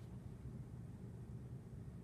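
Quiet room tone with a faint, steady low hum and no distinct sounds.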